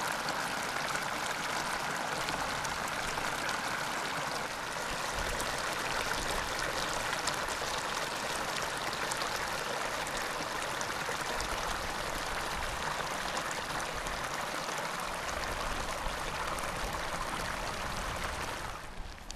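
Shallow thermal runoff water trickling and spilling over a small rock ledge in a steady babble with many fine drips. It drops away just before the end.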